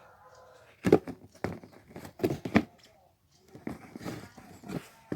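Shoes and packaging being handled: a few short knocks, then rustling.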